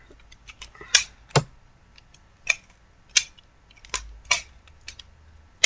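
Homemade popsicle-stick butterfly knife being flipped, its wooden handles and staple hinges clacking in a string of sharp, irregular clicks.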